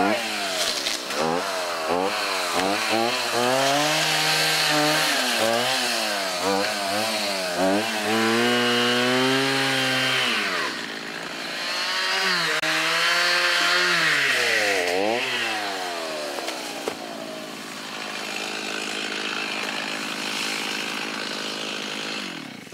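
Chainsaw running, its pitch swooping up and down again and again as it is revved, with longer, lower steady stretches between. For the last few seconds it runs steadier and quieter, then stops abruptly.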